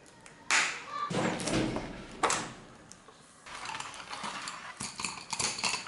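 Cardboard packaging and a plastic sheet rustling and scraping under hands, in a few short bursts. Near the end, wooden colour pencils are slid out of their cardboard box with many light clicks and crackles.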